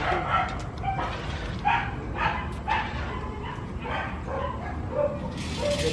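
A dog barking repeatedly in short, sharp barks about half a second apart, over a steady low rumble.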